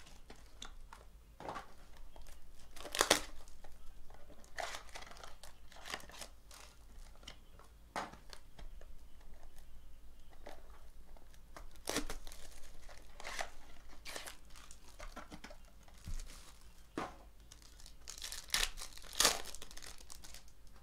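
Plastic shrink wrap torn and crinkled by hand off a trading-card box, in irregular crackles with a few sharper tearing strokes.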